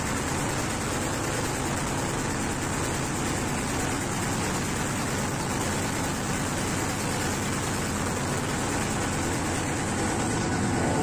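Diesel train running steadily through a railway tunnel: an even engine drone under a wide rush of wheel and rail noise, with the train coming out of the tunnel near the end.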